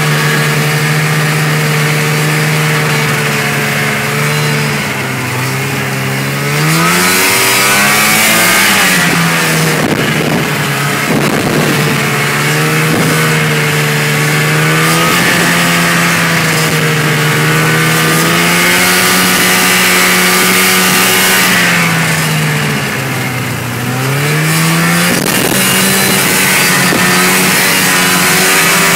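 Snowmobile engine running at a steady cruising speed under way, its pitch dropping as the throttle is eased off and climbing back as it is opened again, twice.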